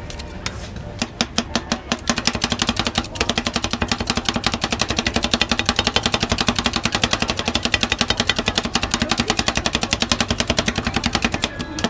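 Metal spatulas rapidly chopping a chocolate ice-cream mixture on a steel cold plate, a fast even clatter of blade on metal at several strikes a second. It starts about a second in and stops near the end.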